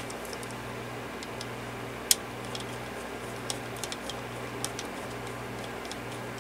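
Scattered light clicks and taps of small parts being handled during fan repair work, with one sharper click about two seconds in, over a steady low hum that pulses about once a second.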